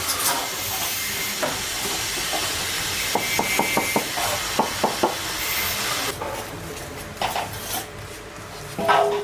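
Stones being handled and dumped: a steady hiss with a quick run of about ten sharp knocks a few seconds in, stones striking one another, and a louder knock near the end.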